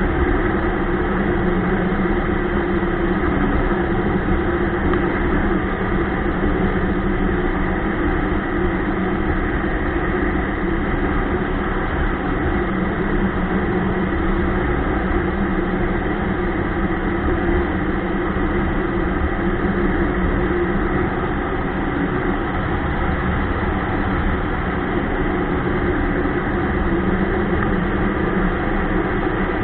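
Ski-Doo Expedition snowmobile running steadily at an even speed, the engine note holding constant with no revving.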